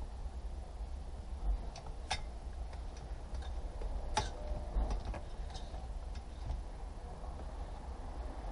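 Scattered light clicks and knocks of hand work on the car's bare dashboard frame and heater housing, two of them sharper and louder, over a steady low hum.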